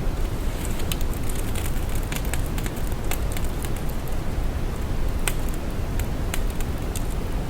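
Deep brown noise: a steady rumbling hiss weighted to the low end, with faint irregular crackles scattered over it.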